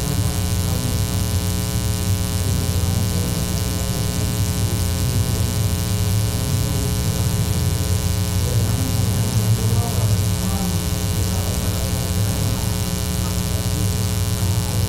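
Loud, steady electrical mains hum and buzz in the audio feed, a dense stack of even tones that never changes and masks almost everything else.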